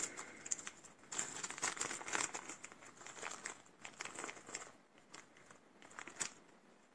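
Small plastic zip bag crinkling as it is opened and handled, with scattered light clicks of small wooden game pieces shifting inside it and in the hand.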